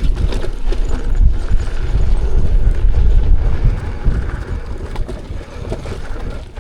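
Wind buffeting the microphone over the rumble of an off-road electric unicycle riding down a rocky trail, with scattered small clicks and knocks from the ride. It eases off somewhat after about four seconds.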